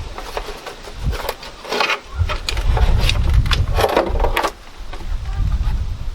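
Clicks and knocks of plastic engine-bay trim being handled and pulled free, over the low rumble of wind on the microphone.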